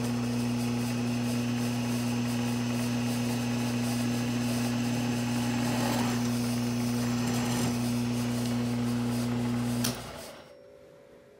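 Bridgeport milling machine's spindle running steadily with a strong motor hum while a center drill cuts into a hot-rolled steel bar, run by a CNC program. About ten seconds in it stops with a click and the hum dies away.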